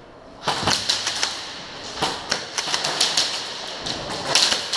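Airsoft guns firing, a fast, irregular clatter of sharp snapping shots and BB hits that starts suddenly about half a second in and keeps going.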